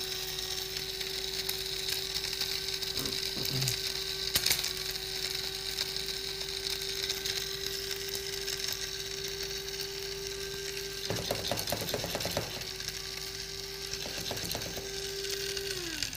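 Small electric blade spice grinder running steadily with a high motor hum over the rattle of whole spices (coriander seed, cumin, black pepper, cloves, black cardamom) being coarsely ground. The motor winds down as it is switched off near the end.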